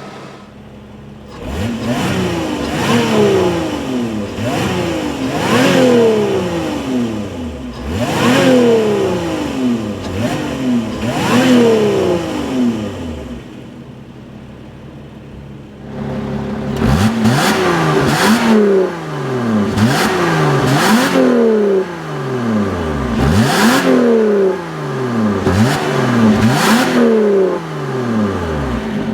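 Lotus Evora 400's supercharged V6 exhaust heard from the rear, revved in quick blips that rise and fall back to idle, with a few seconds of idle about halfway before another run of blips. In the default quiet mode the exhaust bypass valves are RPM-based, staying shut at low revs and opening as the revs climb.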